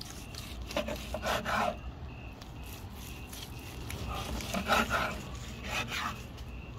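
Knife sawing through grilled tri-tip and scraping on a wooden cutting board, in rough strokes about a second in and again around four to five seconds in, with a shorter scrape near six seconds.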